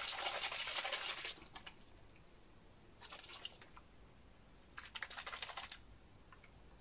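A small plastic spray bottle of salt-water nasal spray shaken by hand to mix it: a fast rattling slosh in three bouts, the first just at the start, the others about three and five seconds in.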